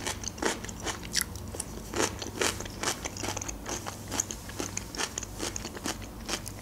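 Close-miked chewing of food: crisp bites and wet crunches at irregular intervals, several a second.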